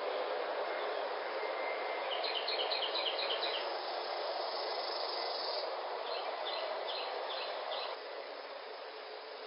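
Steady hiss-like background noise with two runs of short, high chirps: a quick series of about ten about two seconds in, then five slower chirps about six seconds in. The background drops a little near the end.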